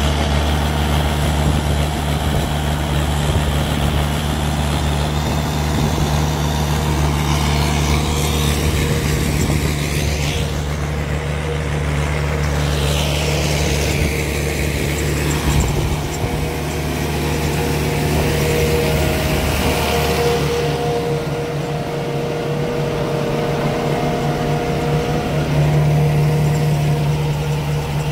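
Kubota tractor's diesel engine running steadily under load while it drives a rotary ditcher that cuts a ditch and throws soil. A higher whine glides down and back up around the middle.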